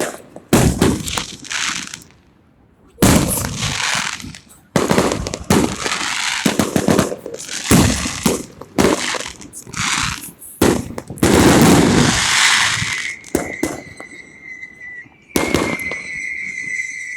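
A rapid, irregular series of loud bangs and cracks, some in dense clusters. A steady high ringing tone sets in near the end.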